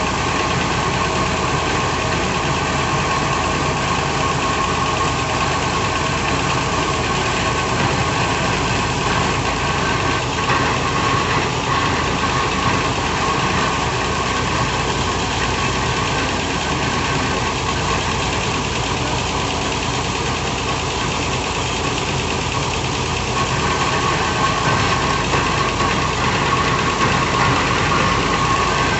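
Diesel engine of a hydraulic piling rig running steadily, getting a little louder in the last few seconds.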